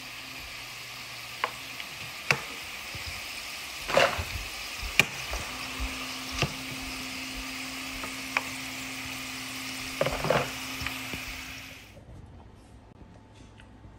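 Potato chips deep-frying in hot oil: a steady sizzle, with a metal ladle clinking against the pan several times as they are stirred. The sizzle cuts off suddenly about twelve seconds in.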